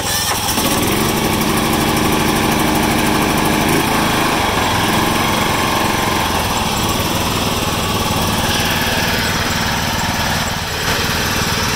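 A 1996 John Deere LX176's 14 hp Kawasaki single-cylinder OHV engine running steadily on choke, on years-old gas, at its first start after sitting for several years.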